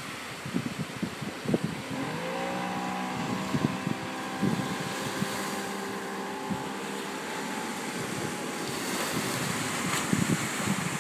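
Outboard motor of a D-class inflatable lifeboat opening up about two seconds in. Its pitch rises quickly, then holds steady as the boat speeds away, and it fades near the end. Wind buffets the microphone throughout.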